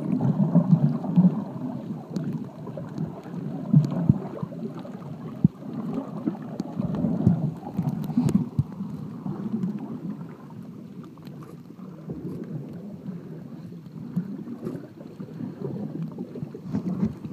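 Muffled underwater noise from a camera held under the sea: a low, surging rumble of moving water with a few faint clicks and knocks.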